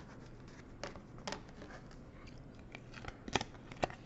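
Light, scattered clicks and crinkles of trading cards and foil card packs being handled on a tabletop: a couple about a second in, then several close together near the end.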